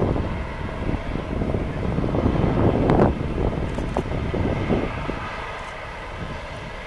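Airbus A350's Rolls-Royce Trent XWB jet engines running as the airliner rolls along the runway: a steady jet rumble that eases off over the last couple of seconds.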